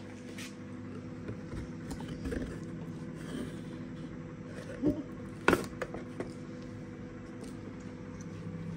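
Cardboard sweets box being handled on a kitchen counter: soft taps and rustles, with a sharp click about five and a half seconds in, over a steady low hum.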